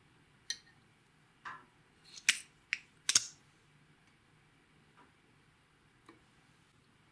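Sharp clicks and snaps from makeup containers and tools being handled: five in the first few seconds, the loudest about three seconds in, then two faint ones.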